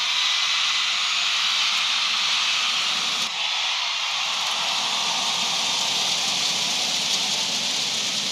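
Steady, loud crowd noise filling an indoor badminton arena, an even hiss-like din of many voices with no distinct words. A brief sharp click about three seconds in.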